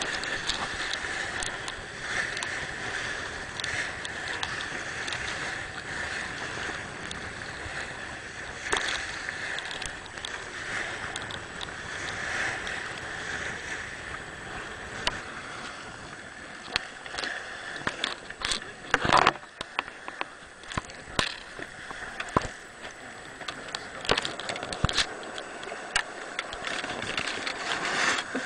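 Water rushing and sloshing past a sailing yacht's hull as it sails, with wind noise. From about halfway through, a run of sharp clicks and knocks on deck.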